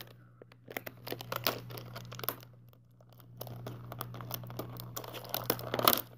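Packaging crinkling and tearing in irregular crackles as Bakugan cores and cards are unwrapped, busiest near the end, over a faint steady low hum.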